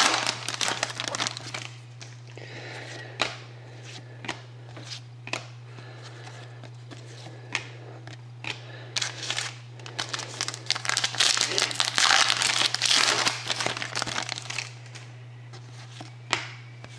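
Panini Contenders hockey card pack wrappers being torn open and crinkled, in two long bursts near the start and in the second half, with short clicks of cards being handled between them. A steady low electrical hum runs underneath.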